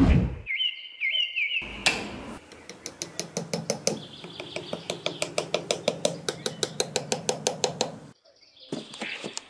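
A short chirping whistle about half a second in, then an even run of light, sharp taps at about five a second that stops near the end.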